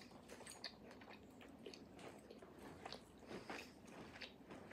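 Faint close-up chewing of a spicy chicken empanada: scattered soft, wet mouth clicks and smacks.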